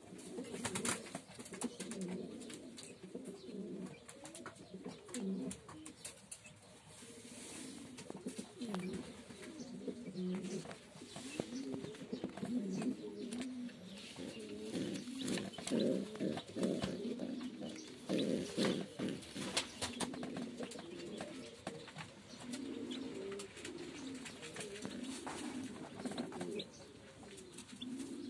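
Domestic pigeons cooing: low, repeated coos that go on throughout, with scattered light clicks and rustles.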